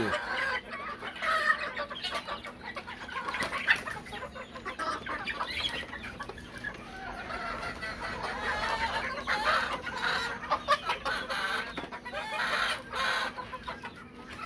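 A flock of chickens clucking and calling busily as they feed, with many short overlapping calls.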